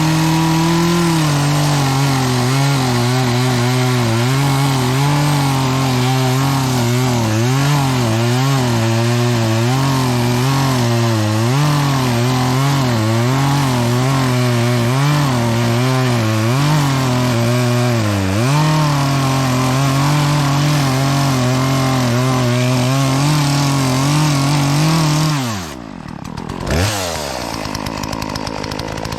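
Gas chainsaw cutting into a tree trunk at full throttle, its engine note wavering up and down as the chain bogs in the wood and picks up again, on a chain the owner admits could have been sharper. Near the end the engine note falls away and the saw drops to a lower, quieter running.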